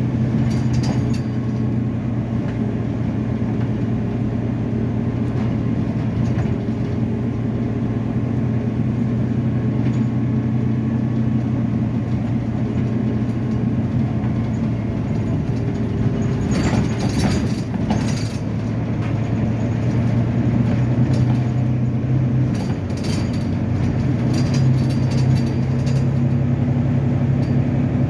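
Volvo B9TL double-decker bus's six-cylinder diesel engine running with a steady low hum. There are a few clicks and rattles about two-thirds of the way through, and the engine note shifts near the end.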